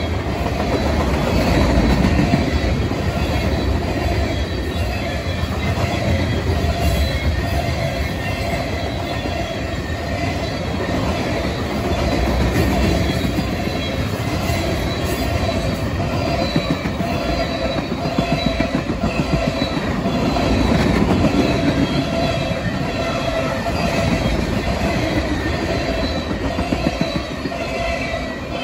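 Freight cars (covered hoppers, then tank cars) rolling past at speed: a steady rumble of steel wheels on rail with a clickety-clack of the wheels. A thin, steady squealing tone rides over it throughout.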